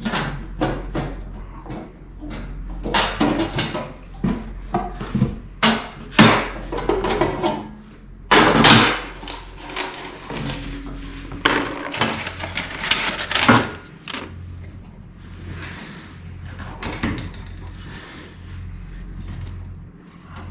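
Hands handling parts and tools at a workbench: a run of irregular knocks, clatters and rustles, busiest in the middle, over a steady low hum.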